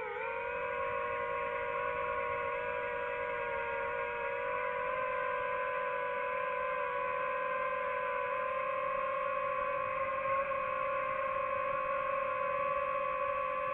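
DJI FPV drone's motors and propellers whining steadily in flight, picked up on the drone's own onboard microphone. The pitch drops sharply right at the start, climbs back over the next second or two, then holds level.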